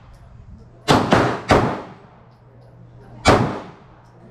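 Pistol shots: three in quick succession about a second in, then one more a little over three seconds in, each a sharp crack with a short echoing tail.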